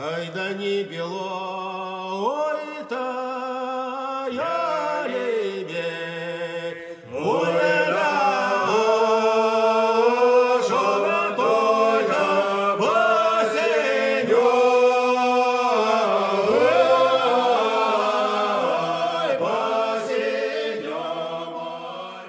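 Choir singing a slow Cossack folk song in harmony with long held notes. It grows fuller and louder about seven seconds in and fades away at the very end.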